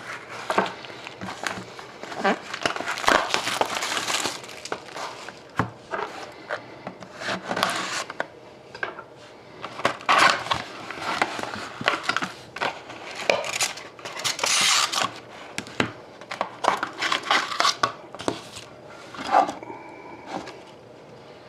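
Plastic wrapping crinkling and tearing in irregular crackly bursts as a sealed box of hockey cards is opened and unwrapped.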